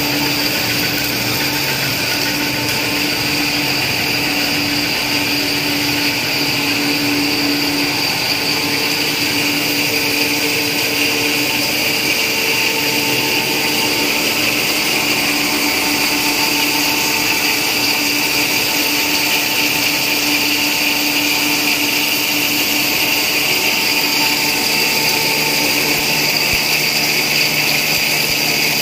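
Cast stretch film production line running: a steady mechanical hum and whir from its motors and roll drives, with several steady whining tones held throughout.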